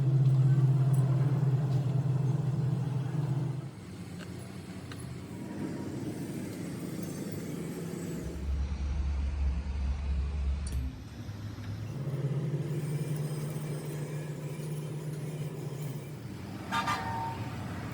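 Vehicle engines humming steadily in stretches that start and stop abruptly, with a short car horn toot about a second before the end.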